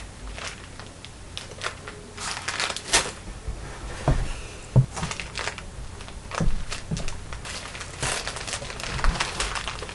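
Handling and movement noise: irregular rustling and crinkling with scattered clicks and a few soft low thumps.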